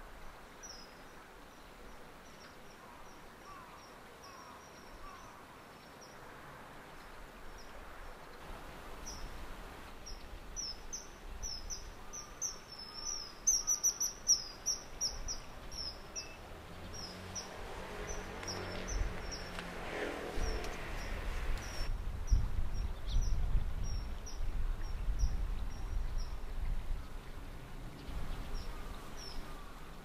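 Common kingfisher calls: short, thin, high-pitched notes repeated throughout, crowding into a rapid run in the middle as a male flies past. A low rumble builds in the second half.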